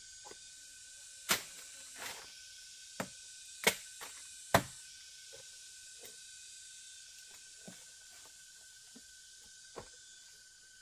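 About seven sharp knocks and cracks at uneven spacing, the loudest in the first half, over a steady high-pitched insect drone.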